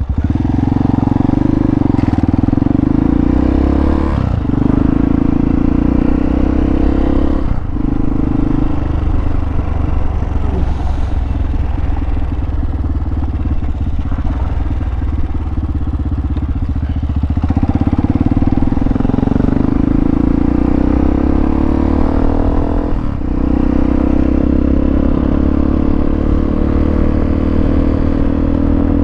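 Hawk 250 dual-sport motorcycle's single-cylinder four-stroke engine pulling away and accelerating, with short dips in the engine note at gear changes about 4, 7.5 and 23 seconds in, and the pitch climbing steadily near the end.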